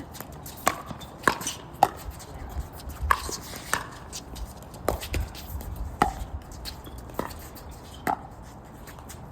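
Paddles hitting a plastic pickleball back and forth in a rally: sharp pops about once a second, uneven in spacing. Wind rumbles on the microphone underneath.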